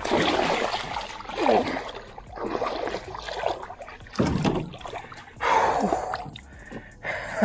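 Shallow water splashing and sloshing in irregular surges as a big snook is hand-landed, the fish thrashing at the surface while it is grabbed by the lip.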